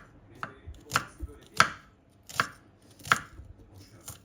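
Kitchen knife chopping on a cutting board in slow, separate strokes, about six of them, one every second or less.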